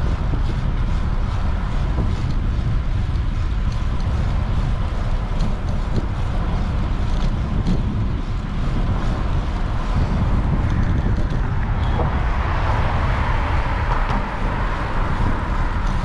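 Wind rumbling on the microphone of a moving bike with street traffic passing, and a vehicle's rushing tyre noise swelling in the last few seconds.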